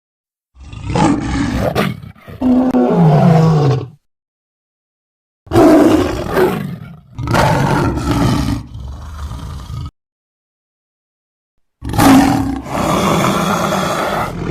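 Big-cat roar sound effect presented as the death roar of a saber-toothed tiger. Long, loud roars come in three bouts, with a second or two of silence between them.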